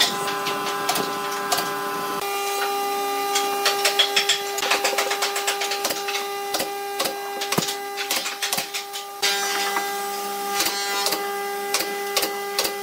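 Pneumatic brad nailer driving brads into pine boards: a quick series of sharp clacks, one with each shot, coming in runs as it moves along the frame.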